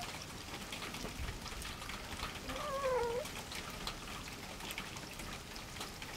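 A domestic cat gives one drawn-out meow, falling slightly in pitch, about two and a half seconds in, while a pair of cats mate. A faint patter of ticks runs underneath.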